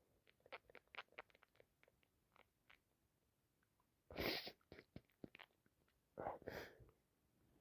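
A person with allergies sniffing twice through a congested nose, about four and six seconds in, with faint mouth or handling clicks before.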